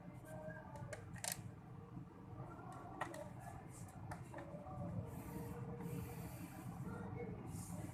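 Hands working on a laptop's plastic bottom case: rubbing and scraping with a few sharp small clicks.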